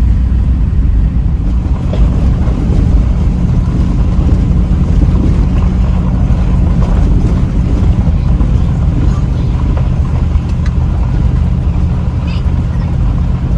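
Vehicle driving, heard from inside: a loud, steady low rumble of engine and road noise.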